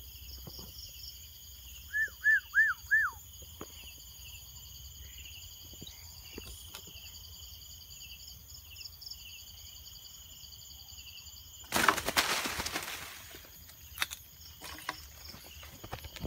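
A steady high pulsing chorus of night insects, broken about two seconds in by four short loud calls that each fall in pitch. Near twelve seconds there is a sudden loud burst of rustling palm fronds and flapping wings as the junglefowl is grabbed, and the insect chorus cuts out. Scattered rustles and clicks follow.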